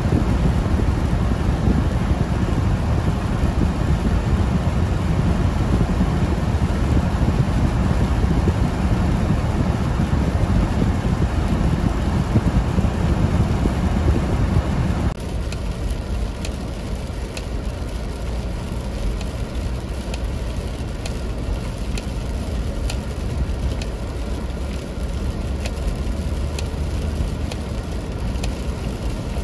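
Steady rumble of a car driving on a slushy road, heard from inside the vehicle. About halfway through it drops to a quieter steady noise with faint scattered ticks.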